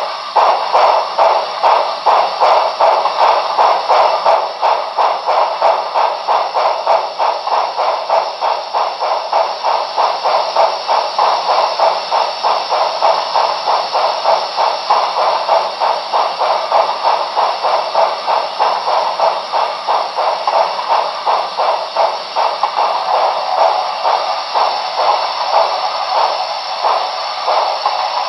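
Sound decoder of a Broadway Limited Paragon 4 HO-scale Santa Fe 4000-class 2-8-2 model steam locomotive playing steam exhaust chuffs through its small onboard speaker. The chuffs come in a steady, even rhythm with a hiss, as the model runs in place on rollers.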